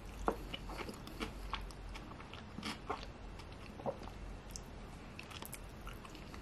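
A person chewing a mouthful of sushi roll: short mouth clicks and smacks, several in the first four seconds, then fewer.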